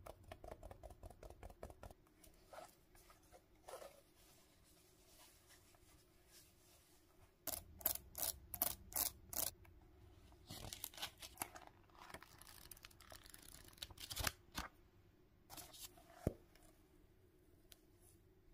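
Long fingernails tapping and scratching on a fuzzy plush notebook cover and flicking through its paper pages: a quick run of light taps at the start, a burst of sharp clicks in the middle, softer scratchy rustling after it, and a few single clicks near the end.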